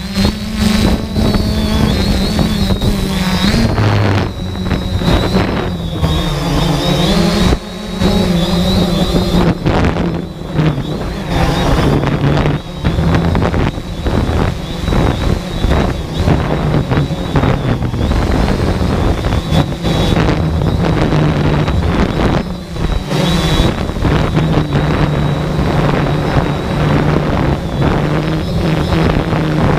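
Quadcopter drone's motors and propellers running, heard from a camera on the drone: a steady high whine over a lower hum. Gusts of wind noise hit the microphone throughout.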